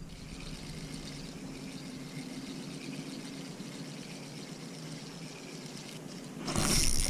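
Creek water flowing, a steady rushing hiss, with a louder rush of noise starting near the end.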